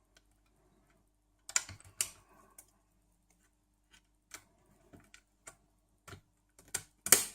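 Small plastic clicks and snaps from the front bezel of a slim laptop DVD drive being unclipped and clipped back on. The clicks come irregularly: a quick cluster a second and a half in, scattered single ticks later, and the sharpest clicks near the end.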